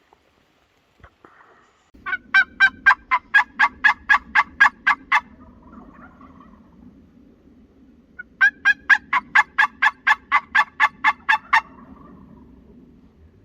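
Wild turkey yelping: two long runs of evenly spaced yelps, about four a second, each run about three seconds, the second starting about three seconds after the first ends. A low, steady noise runs underneath.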